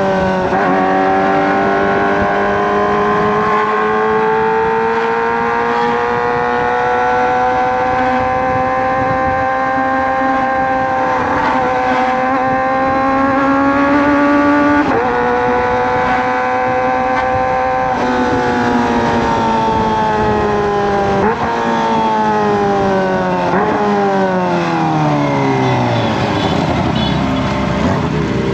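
Kawasaki ZX-25R inline-four engine through a Racefit Slash aftermarket exhaust, revving high under way. The pitch climbs slowly with a few abrupt jumps at gear changes, then falls steadily over the last several seconds as the bike slows, with short blips on the downshifts.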